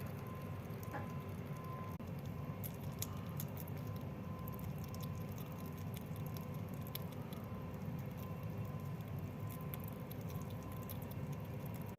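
Sugar glider eating: many faint, quick wet clicks of chewing and licking over a steady low hum.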